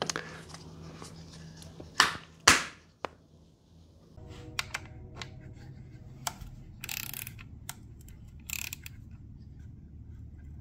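Small hand tools and their case being handled on a bench: two sharp clicks about two seconds in, then a brief silence, then scattered light clicks and a few short rustles over a faint hum.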